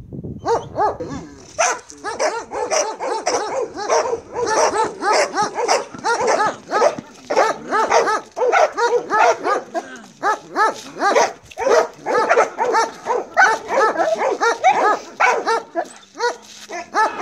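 Belgian Malinois barking rapidly and without pause, about three barks a second, worked up by a decoy teasing it with a bite rag during bite-work agitation.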